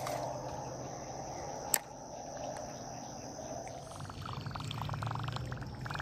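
Spinning reel being worked: one sharp click about two seconds in, then a fast rattling whir from about four seconds on. A steady insect chorus runs underneath.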